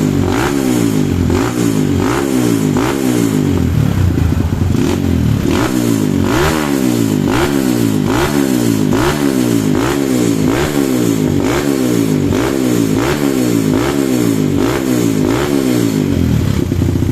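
Kawasaki KLX single-cylinder four-stroke dirt-bike engine being revved in quick throttle blips, about one and a half a second, after a standard tune-up. Near the end it settles into a steady idle.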